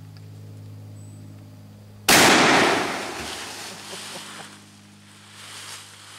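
Stoeger Stagecoach 12-gauge double-barrel shotgun firing both barrels at once with one-ounce slugs: a single loud blast about two seconds in, its echo dying away over the next couple of seconds.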